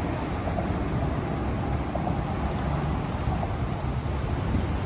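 Wind buffeting the microphone outdoors: a steady rush heavy in the low end that swells and dips unevenly, with no clear breaks.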